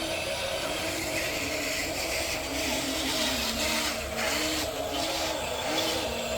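Small electric motors of radio-controlled model construction machines whining, the pitch rising and falling in short repeated arches over a steady hum, as the models are driven in short bursts.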